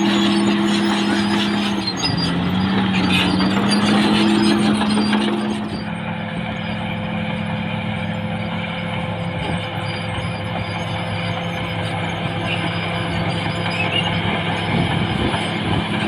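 CAT D6R XL bulldozer's diesel engine running under load, its pitch dipping briefly about two seconds in, then settling to a lower, quieter steady note from about six seconds in.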